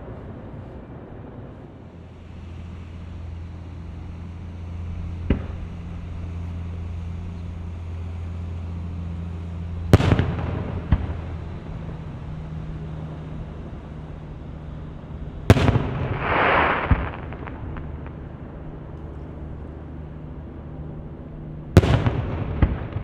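Fireworks shells bursting in the air, with loud sharp bangs about ten, fifteen and twenty-two seconds in and smaller ones around five and eleven seconds. After the bang at fifteen seconds comes a hissing crackle lasting about a second and a half. A low steady hum runs underneath.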